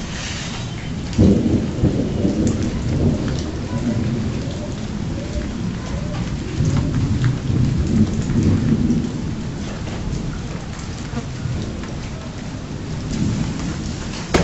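Steady rain hiss with thunder: a sudden clap about a second in opens a long rolling rumble that swells and fades in waves for several seconds, and another rumble swells near the end.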